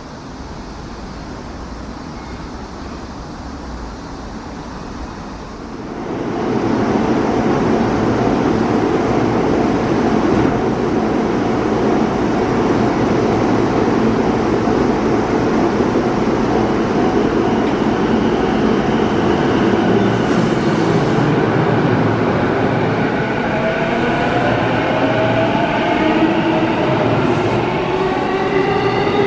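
JR East E233 series electric train: a loud, steady running rumble begins about six seconds in. In the last several seconds several motor tones rise together in pitch as the train pulls out and accelerates.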